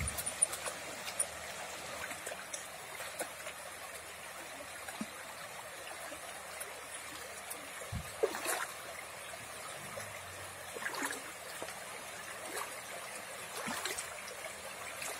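Shallow, rocky stream running steadily over stones, with scattered small splashes and clicks, the loudest about eight seconds in.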